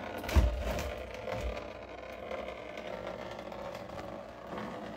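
Small submersible fountain pump running steadily, pushing water through the barrel fountain's tubing so that only a thin stream trickles from a spout, with a couple of low thumps about half a second and a second and a half in. The owner takes the weak flow as a sign that a higher-pressure pump is needed.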